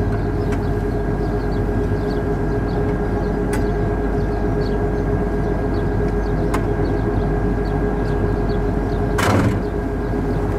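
Military vehicle's engine running steadily, with a constant whine over the drone and a few light clicks. A brief rush of noise comes about nine seconds in.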